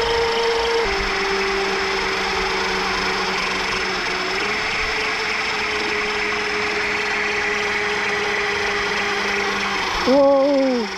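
2000-watt KIRBEBIKE electric hub motor whining steadily as it drives the propeller of an amphibious bike, over a steady hiss. The whine drops in pitch about a second in and rises slightly about four and a half seconds in. A man shouts "Whoa!" near the end.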